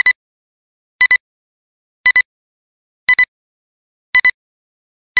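Countdown-leader sound effect: a short double beep about once a second as the numbers count down, with silence between the beeps.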